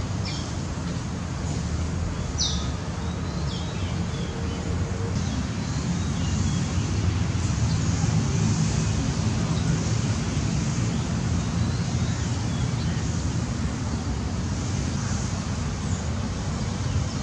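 Steady outdoor background rumble, like distant traffic, with a few short high bird chirps in the first few seconds.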